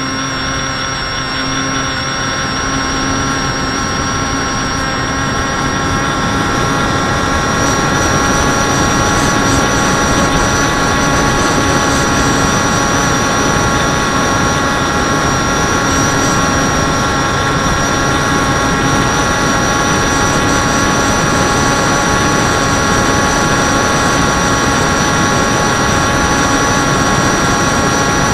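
Electric motor and propeller of a radio-controlled FPV aircraft, heard from its onboard camera: a steady multi-tone whine over the rush of wind. It gets a little louder about a quarter of the way in.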